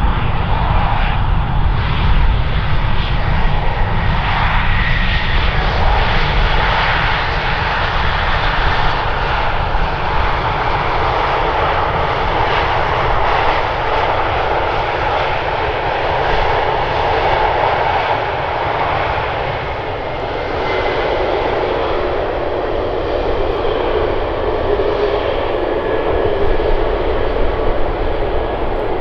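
Airbus A320neo's CFM LEAP-1A jet engines running as it rolls along the runway just after landing, a steady loud rumble and hiss that eases slightly about two-thirds of the way through.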